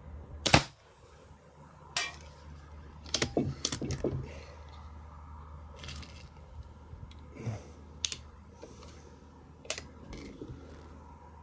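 Sharp clicks and knocks of handling, the loudest about half a second in, then several quieter ones spread over the next ten seconds.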